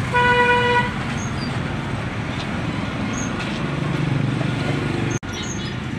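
Street traffic with a vehicle engine running, opened by a short, steady, high beep lasting under a second.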